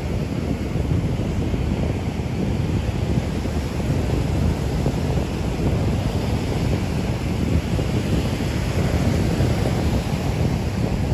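Wind buffeting the microphone over the steady rush of heavy surf breaking on the shore.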